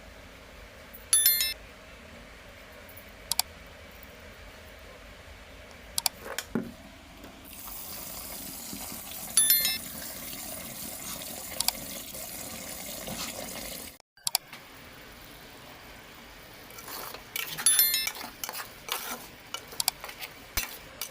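Eating at a meal: small handling and mouth noises, with a few sharp metallic clinks that ring briefly, about a second in, around nine seconds in, and a cluster near the end.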